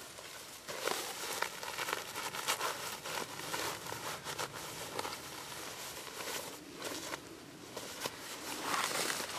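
Fabric rustling and crinkling, with many small irregular scrapes and clicks, as a person handles the front of his jacket and his backpack straps. It grows busier about a second in.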